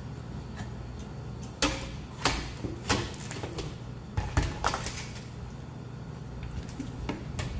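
Cooked lobster shell being cracked and pulled apart by hand: a string of sharp cracks and knocks, mostly in the first half, with one more near the end, over a steady low hum.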